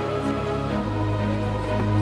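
Background music with slow, held chords; a deep bass note comes in a little under a second in and holds.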